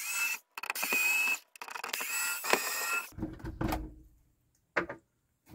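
Electric screwdriver running in three short runs, a whining whir, as it backs out the screws holding a MaxxFan roof fan. It is followed by a few low thumps and a click as the loosened plastic fan housing is handled.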